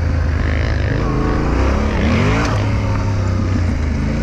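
Motorcycle engine running while being ridden, its revs rising and falling.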